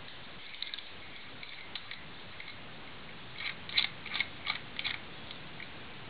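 Master combination padlock being worked by hand for manipulation: faint clicks from the mechanism, then a quick run of about five louder clicks between about three and a half and five seconds in.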